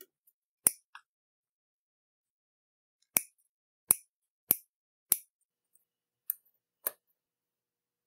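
Small pliers snipping and working a tiny coiled wire spring: a series of about eight sharp, separate metallic clicks with silence between, loudest from about three to five seconds in.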